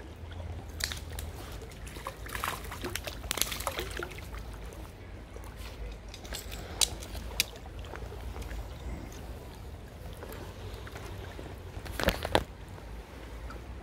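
River water sloshing and splashing in several short bursts, the loudest about twelve seconds in, over a steady low rumble.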